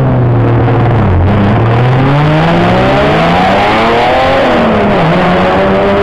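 Race car engines running as cars roll along the pit lane one after another: a Porsche 911 Cup car goes by close, then BMW touring cars follow. Several engine notes overlap, rising and falling in pitch as they pass.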